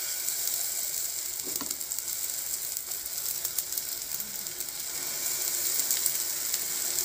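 Semolina batter sizzling in hot oil in a frying pan as a steel spoon spreads it out: a steady high hiss with many small crackles.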